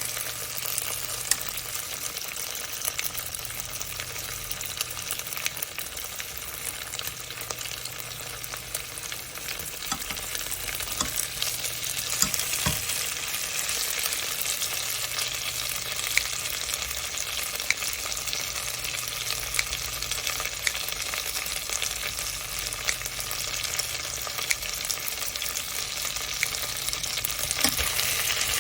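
Food sizzling steadily in a pot while potato gochujang stew is being cooked, with scattered short clicks and taps of a utensil against the pot.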